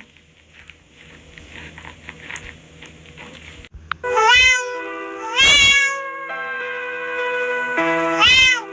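A quiet stretch, then about four seconds in music with long held notes starts and a cat meows loudly three times over it, each meow rising and falling in pitch.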